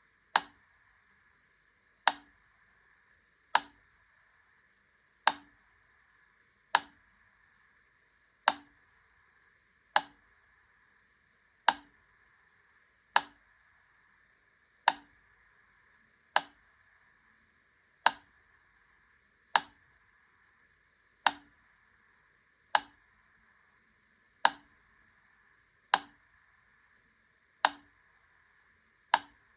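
Wittner Taktell Piccolo clockwork metronome ticking at a slow tempo, one sharp click about every second and a half. The beats alternate slightly long and short, so the tick-tock is a little out of beat. A faint steady hiss lies underneath.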